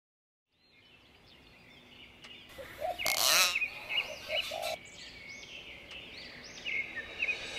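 Common hill mynas calling: after about a second of silence, a run of short arched whistles, with one louder, harsh call about three seconds in.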